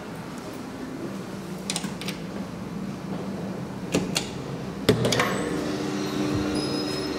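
Hydraulic elevator: clicks of its buttons being pressed, a loud clunk about five seconds in, and then the lift's machinery starting up with a steady hum.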